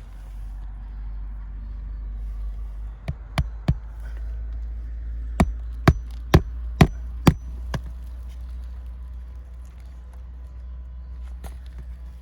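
Hammer blows on a shingle roof while nails are being worked out of asphalt shingles: three sharp strikes, then a quicker run of about six, roughly two a second, over a steady low rumble.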